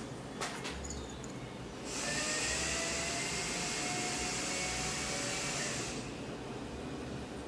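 A small motor running with a steady hissing whir, starting about two seconds in and stopping suddenly about four seconds later.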